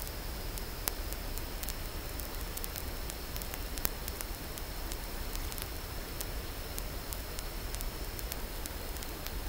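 Steady static-like hiss with a low rumble underneath and a faint steady high tone, broken by scattered single sharp clicks. This is the background noise of the recording while nothing else happens.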